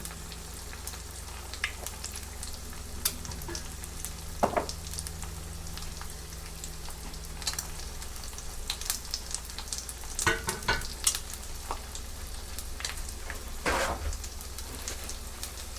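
Bacon sizzling in a frying pan, a steady fine hiss over a low hum, with scattered sharp clicks and scrapes of a utensil against the pan, a few in quick succession about ten seconds in.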